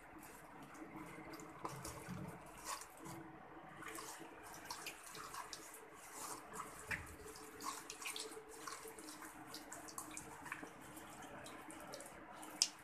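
Bare hands squeezing and turning raw chicken pieces in a thick, wet spice marinade in a bowl, working the masala into the meat: faint, irregular squelches and small wet clicks.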